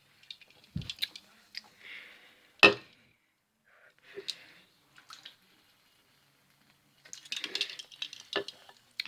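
Soda being sipped and swallowed among small clicks and handling noises, with one sharp, loud knock about two and a half seconds in.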